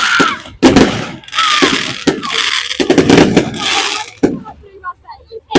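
Fireworks display: a rapid series of loud bangs from bursting shells, with dense crackling, for about four seconds, then thinning to scattered small crackles and pops, with one more sharp bang near the end.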